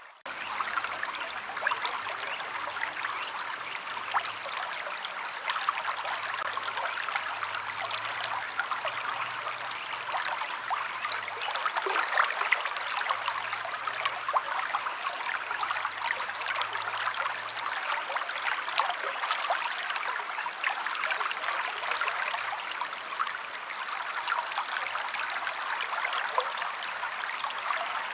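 Stream water flowing steadily, with a dense fine trickling and splashing.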